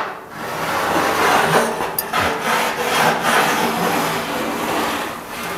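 Scratchy rubbing of a marker drawn along the rusty sheet steel of a truck's rear wheel arch, guided by a wooden radius stick swung around a centre point to mark a circular arc.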